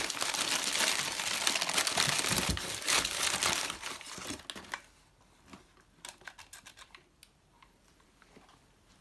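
Packaging being crumpled and torn while tools are unwrapped: a dense crinkling for about four seconds, then a few scattered small clicks and taps as it stops.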